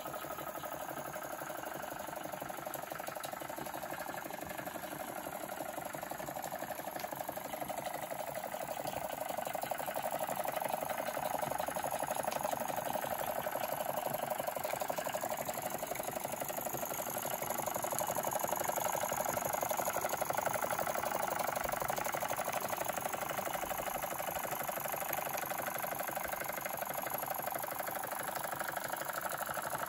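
Small Jensen live steam engine running steadily, driving a line of belt-driven toy accessories, pulleys and gears. It makes a fast, even mechanical clatter that grows a little louder about a third of the way in.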